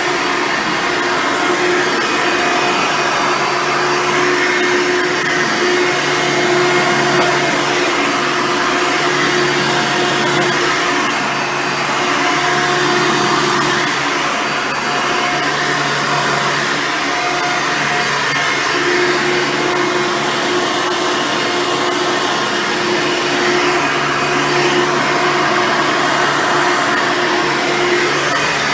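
Hoover Soft & Light Supreme upright vacuum cleaner with a 7-amp motor running continuously while vacuuming. Its steady motor whine rises and falls slightly in level.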